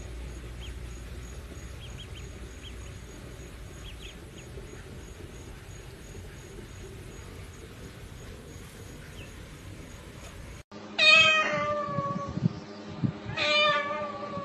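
A cat meowing loudly twice, each meow long and falling in pitch. Before that, some ten seconds of low, steady background noise with faint chirps.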